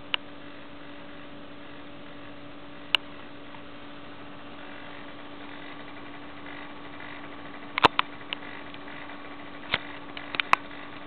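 Toshiba laptop giving off a steady humming drone with sharp clicks: one near the start, one about three seconds in, and a cluster in the last few seconds. The owner calls it a weird sound that the laptop makes when it starts up.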